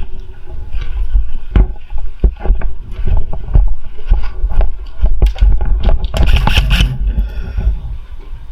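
Rustling, rumbling and irregular knocks of movement noise on a worn camera as an airsoft player moves across the field, with a denser, brighter stretch of rustle about six seconds in.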